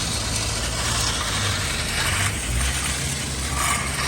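Engine of heavy construction machinery running steadily, with a shift in its low note about two and a half seconds in.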